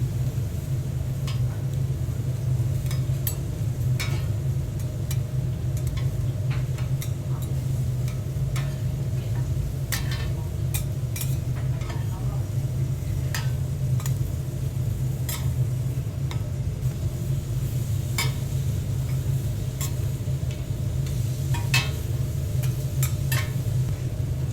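Cooking at a griddle: utensils stirring and scraping, with scattered sharp clinks and taps of metal against pans and bowls and some sizzling, over a steady low hum.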